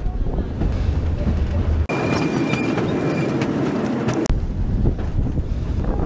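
Wind buffeting the microphone over the running rumble of a heritage train's carriages on the track. The sound changes abruptly twice, and in the middle stretch a thin, steady high tone sounds for about a second and a half.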